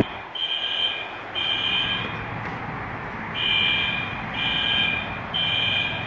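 Building fire alarm sounding in the temporal-three evacuation pattern: three high tones about a second apart, a pause of about a second and a half, then three more.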